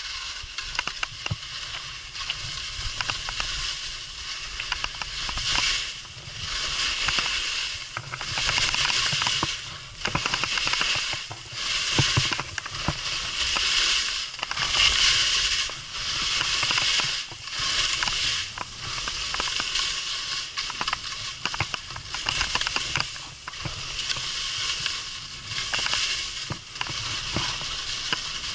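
Skis turning on snow: a scraping hiss that swells and fades with each turn, roughly once every second or so, over a steady low rumble.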